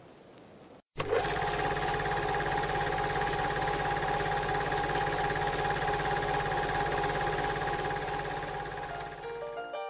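A steady, fast mechanical clatter with a hum under it, starting suddenly about a second in after a brief gap. A few short plucked notes of music come in near the end.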